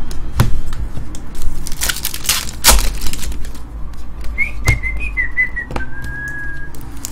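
Trading cards being handled and flipped by hand, giving a scatter of sharp clicks and snaps. Midway through, a short whistle of a few wavering notes ends on one held note.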